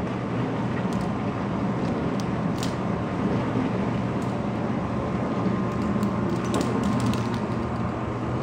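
A steady low hum throughout, with scattered light clicks and taps of a ballpoint pen and a kitten's paws on a ceramic-tile floor, a cluster of them near the end.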